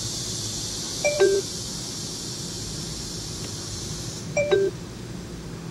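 Finedrive iQ3Dv car navigation unit's button-press sound: a short two-note falling beep, about a second in and again about three seconds later, as the map-mode buttons are pressed. A steady low hiss and hum run underneath.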